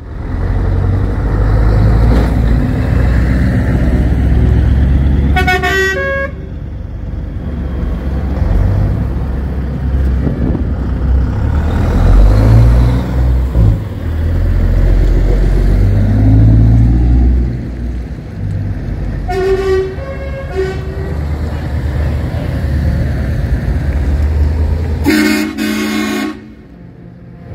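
Heavy truck diesel engines running as the trucks pull away. Air horns sound three times: a short multi-note blast about five seconds in, two short blasts around twenty seconds, and a long loud chord near the end.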